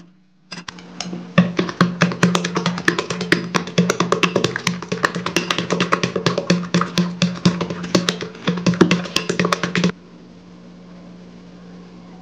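Chopsticks stirring sticky grated nagaimo batter in a glass bowl, clicking rapidly and unevenly against the glass. The clicking stops near the end.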